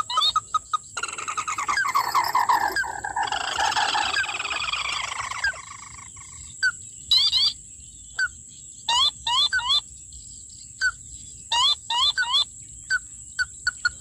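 Ruddy-breasted crake calls: a long descending trill from about one second in to about five seconds, then single short rising notes at intervals of about half a second to a second.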